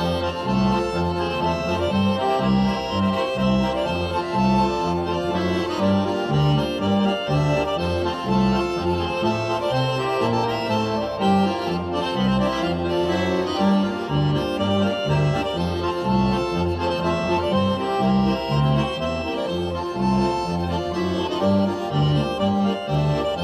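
Swiss folk music: an accordion playing a steady dance tune over an even oom-pah bass.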